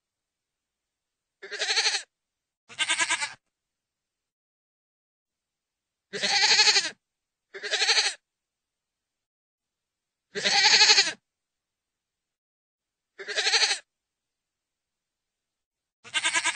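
Goat bleating: seven short, wavering bleats, each under a second long, some in quick pairs, with dead silence between them.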